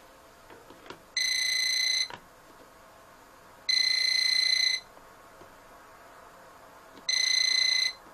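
UNI-T non-contact voltage detector pen beeping three times, each steady beep about a second long, as its tip is pushed into the live socket holes of a powered extension strip: the beep signals that it detects mains voltage.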